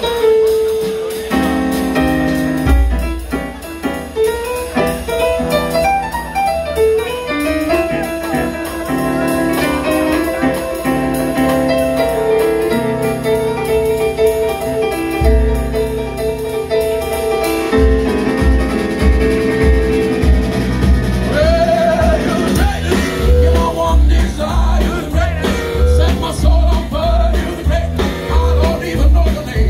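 Live rock and roll band music with the piano to the fore; about 18 seconds in, a steady low driving beat from the bass and drums comes in under it.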